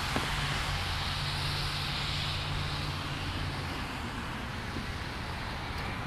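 A car going by on a wet street: steady tyre hiss with a low engine hum that drops away about halfway through.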